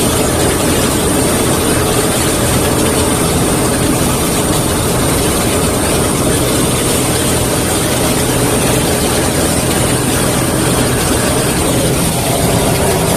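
Crop-spraying airplane's engine running steadily, heard from inside the cockpit: a loud, even drone with a constant high hiss.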